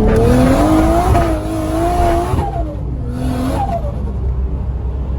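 A car engine revving hard under acceleration, its pitch climbing for about two seconds and then dropping away, followed by a brief hiss and a shorter rise as it pulls again.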